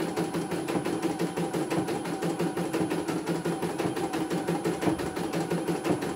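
CNY E900 computerised embroidery machine stitching, its needle bar striking in a rapid, even clatter of about eight strokes a second over the hum of its motor.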